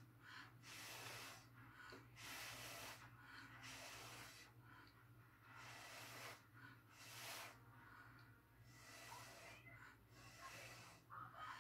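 Puffs of breath blown through a straw onto wet acrylic paint to spread it into a blow-out pattern: a string of short, faint breathy hisses, each about half a second to a second long, with brief pauses between.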